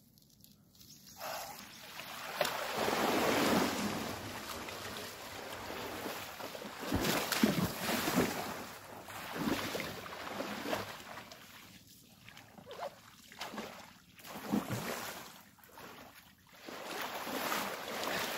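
Water splashing and sloshing as a mountain bike and its rider push through deep floodwater on a trail, swelling and fading in several surges.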